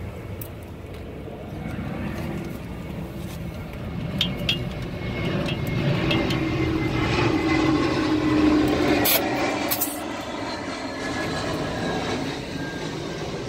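A vehicle's engine rumbling, swelling past the middle and then easing off. Two short sharp hisses come past the middle, as a tire-pressure gauge is seated on a bus tire's valve stem.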